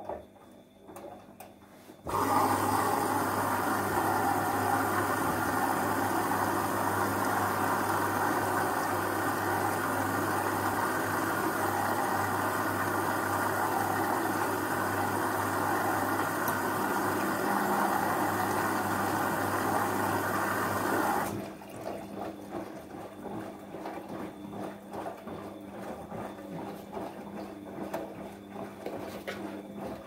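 Bosch front-loading washing machine taking in water. About two seconds in, a steady rush of water with a low hum starts abruptly and runs for about nineteen seconds before cutting off suddenly. Near the end the drum is turning the wet load.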